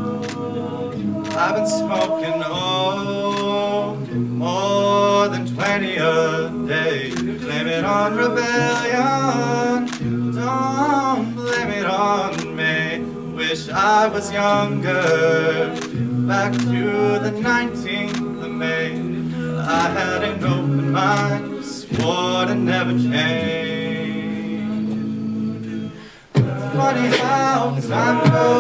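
Men's a cappella group singing: a lead vocalist's melody over sustained backing chords, with vocal percussion keeping the beat. Near the end the voices briefly drop out, then come back in loud.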